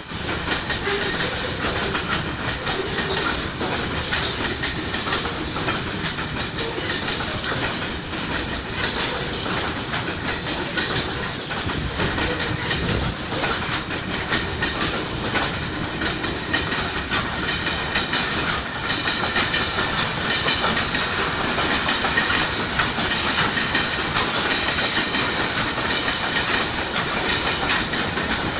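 Freight train passing, its wagons' wheels clicking over the rails in a continuous rapid clatter, with one brief louder bang about eleven seconds in.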